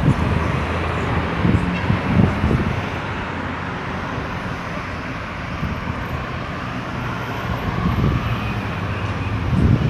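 Steady road traffic circulating at a roundabout: engines and tyre noise, with louder vehicles passing close by in the first couple of seconds and again near the end.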